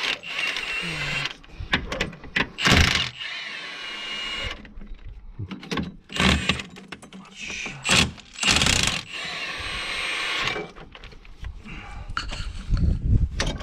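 A power tool in repeated short bursts, with metal knocks, as bolts are undone on a tractor's rear brake assembly.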